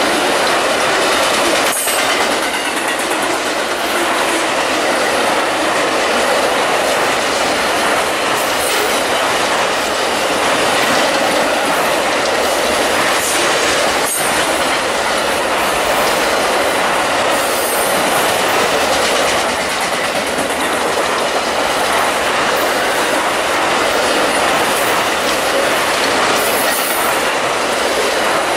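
Amtrak Auto Train's enclosed auto-rack cars passing at speed: a loud, steady rush of steel wheels on rail, with a couple of sharp clicks as the wheels cross rail joints.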